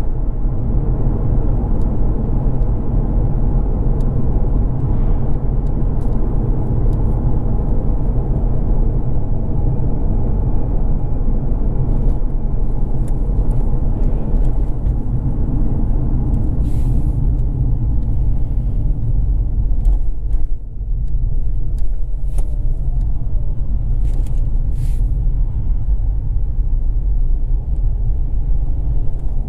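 Mazda RX-8 driving at steady speed: a continuous rumble of its rotary engine and tyres on the road. The loudness dips briefly about two-thirds of the way through.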